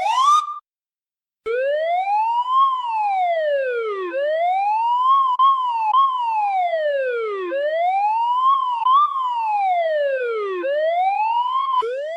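Siren wailing: a short rising chirp at the very start, then after about a second's gap a long wail whose pitch climbs and falls repeatedly, one rise-and-fall every few seconds. The wail breaks off and starts rising again near the end.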